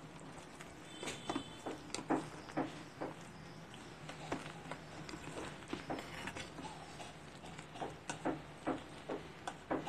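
Steel spoon stirring thick soup in a stainless steel pot, knocking and scraping lightly against the pot in irregular taps about two or three a second, over a faint low hum.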